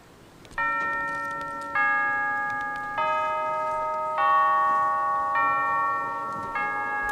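A marching band's front ensemble playing bell-like chords on mallet percussion or keyboard: six struck chords about every second and a quarter, each ringing on and fading before the next.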